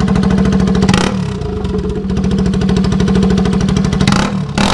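Bajaj Pulsar RS200's single-cylinder engine running loud and unmuffled with its silencer and catalytic converter removed. It idles with a short throttle blip about a second in and another near the end, the revs falling back each time.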